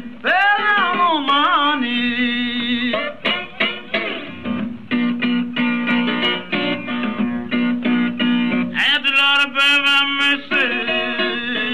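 Background music: a guitar-led song with a singing voice.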